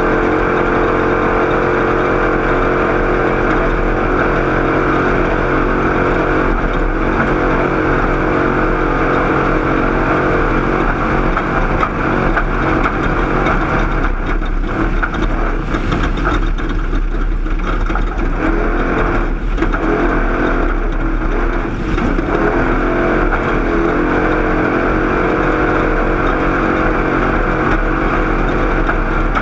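Off-road race vehicle's engine running hard at racing speed, with a continuous rush of noise over the engine note. The sound eases briefly a few times in the middle stretch, then picks back up.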